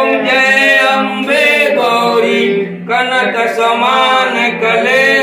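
Voices singing a Hindu devotional chant in short phrases with brief breaks between them.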